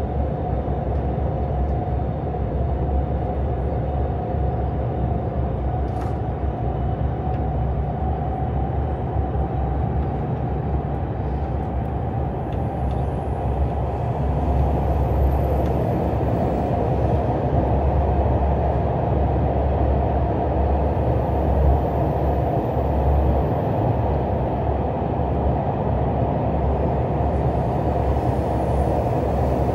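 KTX high-speed train running at speed, heard inside a passenger car: a steady low rumble of wheels and running gear on the track, getting a little louder about halfway through.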